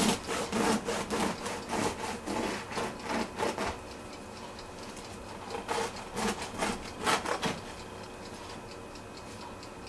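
Serrated bread knife sawing back and forth through the crisp crust of a cooled loaf of sourdough bread: a run of rasping strokes for about four seconds, a pause, then a second, shorter run about six seconds in.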